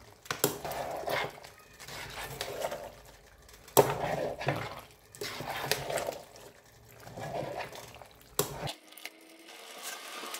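A spoon stirring and scraping thick chili garlic sauce that is simmering in oil in a cooking pot: repeated wet, sloshing strokes with clinks against the pot.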